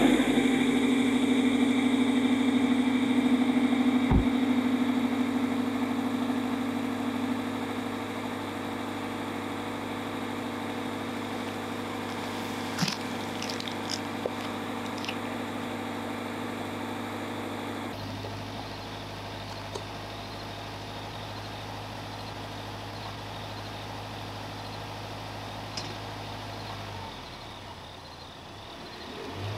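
A car engine idling with a steady hum, slowly fading. A few light footsteps on asphalt come about halfway through.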